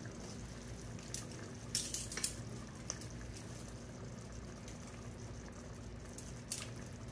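Kitchen tongs lifting wet cooked spaghetti into a baking pan: a few soft clicks and wet slaps, clustered about two seconds in and again near the end, over a steady low hum.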